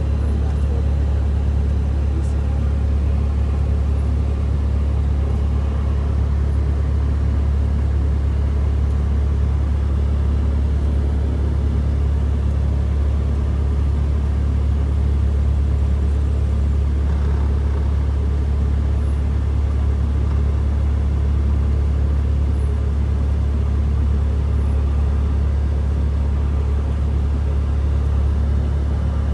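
Cessna 172's piston engine and propeller running at low taxi power, heard inside the cabin as a steady low drone.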